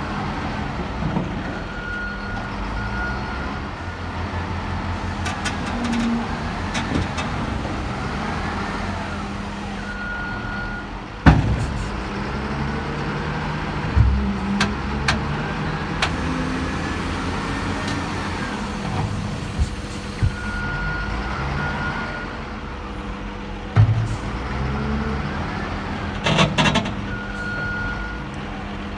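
Heavy earthmoving machine's engine running and repeatedly revving up and down while it works, with short high beeps now and then. Several sharp knocks or clanks stand out, the loudest about eleven seconds in.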